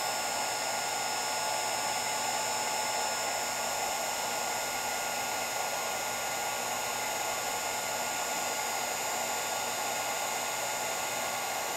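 Electric heat gun running steadily, blowing hot air onto a heat-shrink sleeve over a twisted wire splice to shrink it and melt the solder ring inside.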